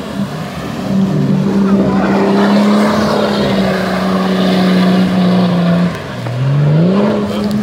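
Off-road 4x4 SUV engine revving hard at steady high revs while its wheels churn through deep mud and water; about six seconds in the revs drop, then climb back up.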